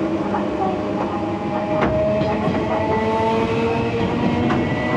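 Enshu Railway Type 30 electric train heard from on board: its nose-suspended (tsurikake) traction motors whine with several held tones over the running rumble, and the wheels click over rail joints a few times.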